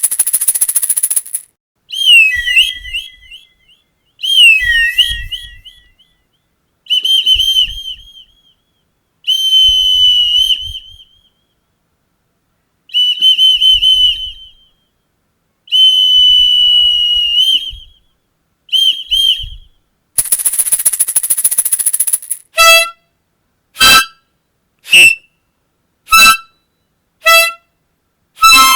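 Dog-calling whistle blown in a series of warbling, high-pitched blasts of one to two seconds each, with a shrill hissing blast at the start and another about twenty seconds in. Near the end a harmonica plays short separate notes, about one a second.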